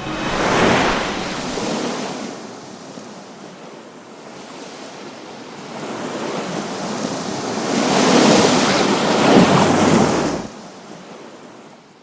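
Ocean surf: a wave breaking at the start, then a larger wave building and crashing from about six seconds in, the sound cutting off suddenly about ten and a half seconds in.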